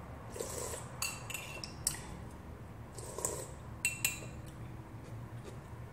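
Metal spoon clinking against a ceramic mug, a handful of sharp clinks with a short ring, between two slurping sips from the spoon.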